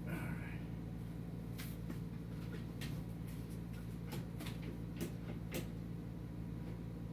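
Light clicks and knocks of tool parts being handled and adjusted, scattered irregularly over a steady low hum.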